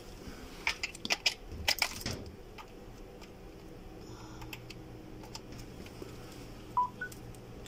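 Plastic clicks and clatter of a three-pin charger plug and cable being handled and plugged in. Near the end come two short electronic beeps, the second higher.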